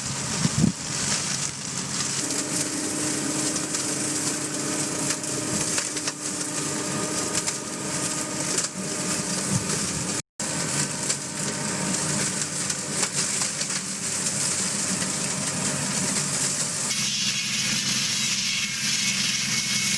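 A heavy machine's engine running steadily under a dense crackling, grinding noise, typical of a tree-cutting machine at work. The sound cuts out for a split second about halfway, and near the end it switches abruptly to a louder, hissier running noise.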